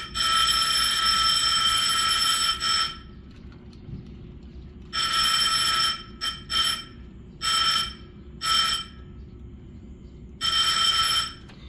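Fire alarm bell ringing in bursts, with a long ring of about three seconds at the start and then several shorter rings. The pull station's wires are being shorted together, which puts the alarm circuit into alarm.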